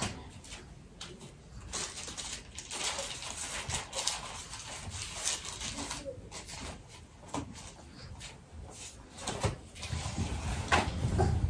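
Paper rustling: sheets and a small booklet being leafed through and handled, in scattered irregular crinkles.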